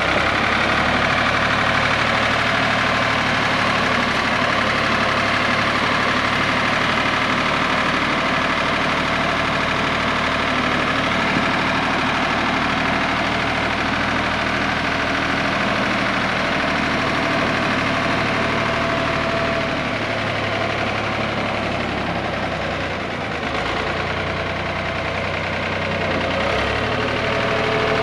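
Ford 515 industrial loader tractor's engine running at a steady pace as the tractor drives, dipping slightly in loudness about three-quarters of the way through.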